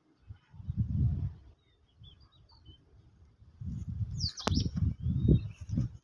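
Small birds chirping now and then, with one louder falling call a little past four seconds. Irregular low rumbling bursts, like wind or handling on the microphone, are loudest about a second in and again through the second half.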